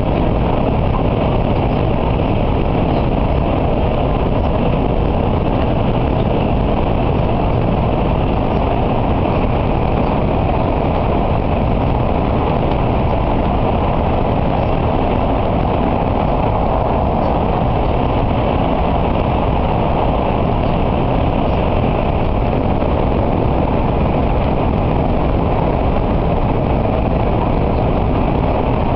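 N700A Shinkansen running at speed through a tunnel, heard from inside the passenger cabin as a steady, loud, low noise with no change.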